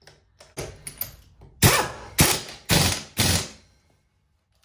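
Central Pneumatic Earthquake air impact wrench hammering a 21 mm lug nut in short trigger bursts: two lighter blips about a second in, then four loud bursts about half a second apart.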